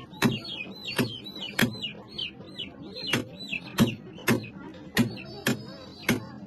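Heavy cleaver chopping raw chicken and bone on a wooden log block: sharp single chops about twice a second, unevenly spaced. Small birds chirp over it, quick repeated high chirps.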